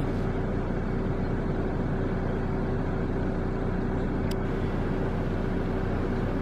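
Motor vehicle engine running steadily, an even drone with a constant tone in it, and a single brief click about four seconds in.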